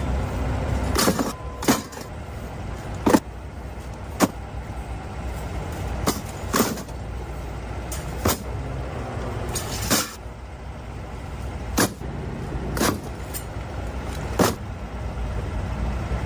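A steady low rumble like a running vehicle, broken by about a dozen short sharp knocks and clatters at irregular intervals.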